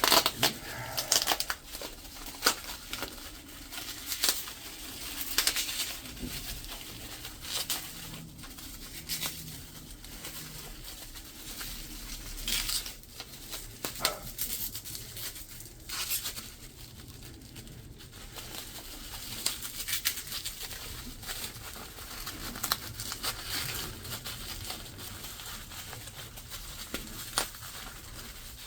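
Plastic packaging crinkling and tearing in irregular crackles, with scattered sharp clicks, as new brake caliper pistons and seals are unwrapped and handled.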